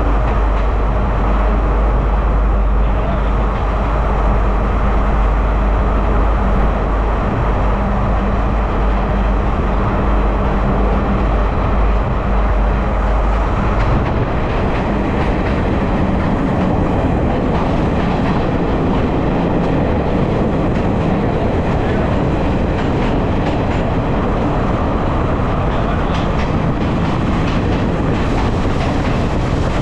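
Passenger train running through a long railway tunnel, heard from inside a carriage: a heavy, steady low rumble with a hum. About halfway through, the rumble eases and the clatter of the wheels over rail joints comes to the fore.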